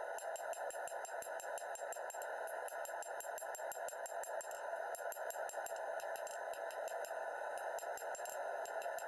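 A hand hammer striking a red-hot steel sword blade on an anvil in a quick run of blows, several a second, while the taper is drawn out. A steady hiss runs underneath.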